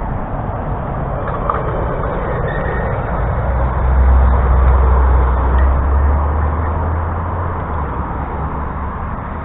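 Shallow stream water running steadily, with a hooked trout splashing at the surface as it is played toward a landing net. A low rumble swells in the middle and fades again.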